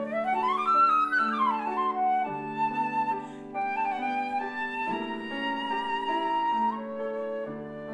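Flute with grand piano accompaniment playing classical music: a quick run that climbs and falls back in the first two seconds, then held flute notes over steady piano chords.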